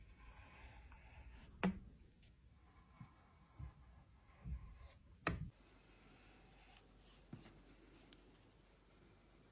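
Wire loop tool carving a clay pot: faint scraping of the blade through the clay, with a few sharp clicks and knocks, the loudest about a second and a half in and again just after five seconds.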